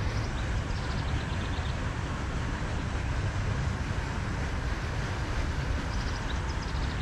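Steady low rumble of distant traffic, with two short runs of faint high trills, one near the start and one near the end.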